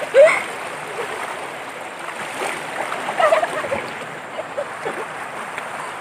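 Waterfall water rushing steadily over rocks.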